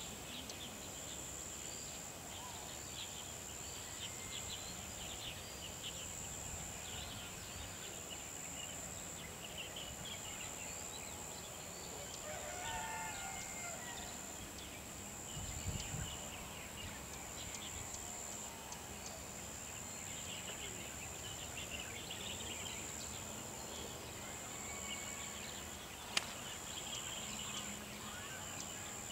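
Outdoor natural ambience: a steady high-pitched whine with scattered faint bird chirps, one short pitched call about halfway through, and a dull thump just after it.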